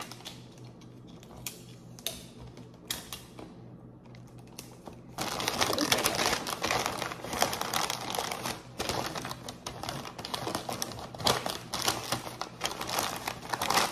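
Paper rustling and crinkling as a gift is wrapped by hand. A few light clicks and rustles come first, then about five seconds in it turns into loud, dense crinkling that goes on.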